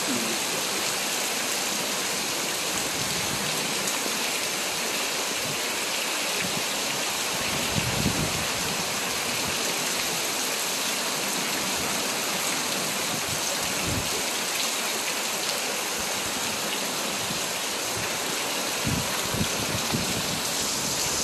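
Heavy storm rain pouring down in a steady hiss, with a few brief low thumps through it.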